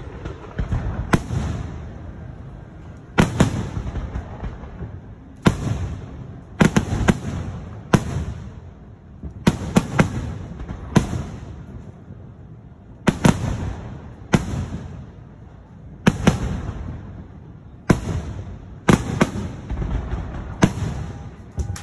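Aerial fireworks shells bursting overhead: sharp bangs every second or two, some in quick pairs, each trailing off in a rumbling echo.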